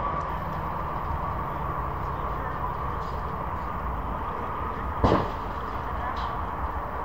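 A single sharp knock about five seconds in, over steady outdoor background hiss.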